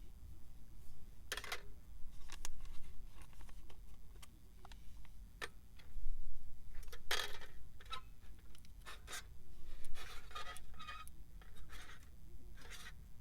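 Scattered light clicks, rubs and scrapes of small objects being handled, busiest about seven and ten seconds in, over a low steady rumble.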